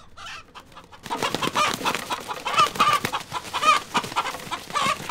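A rooster calling in a rapid, unbroken string of short clucks, starting about a second in.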